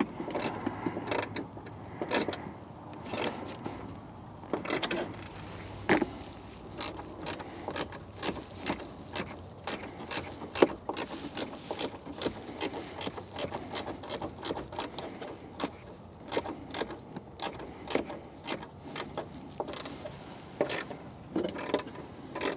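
Ratchet wrench tightening a tail light's mounting fasteners: a long run of sharp clicks, about two a second.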